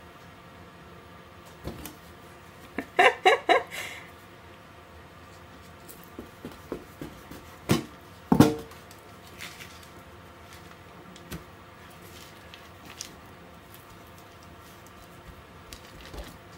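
Quiet kitchen work on dough and baking paper over a metal tray, broken about three seconds in by a quick run of four or five short, loud pitched sounds, and by two sharp knocks a little before and after eight seconds.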